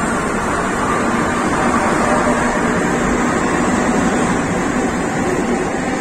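Kolkata Metro train running, a steady rumbling noise with a faint hum and no breaks.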